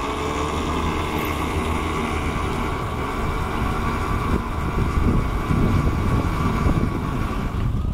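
The sailboat's inboard Yanmar 75 hp marine diesel engine running steadily, a little louder from about five seconds in.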